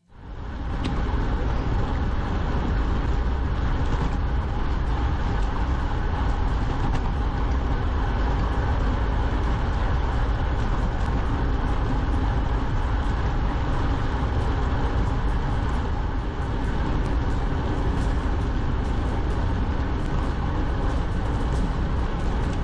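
Steady, loud ride noise, heaviest in a deep rumble: wind and road noise on a camera carried along on a solo ride. It cuts in abruptly at the start and holds steady throughout.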